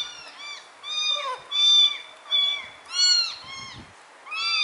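Young kittens meowing over and over, high-pitched calls that rise and fall, about one every half second, as they beg for a bottle of milk held just out of reach.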